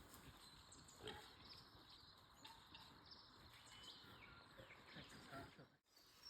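Near silence: faint outdoor background with a few soft, short high chirps.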